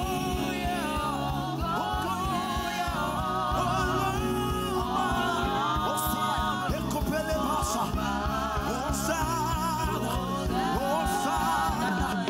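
Live gospel praise music: a lead singer and backing singers sing in Yoruba over keyboard, bass guitar and a steady drum beat.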